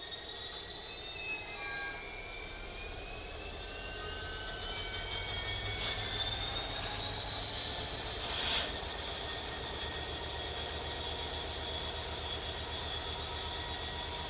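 Train wheels squealing against the rails, several high tones gliding slowly upward over a low rumble. Two short bursts of hiss about six and eight and a half seconds in, the second longer and louder.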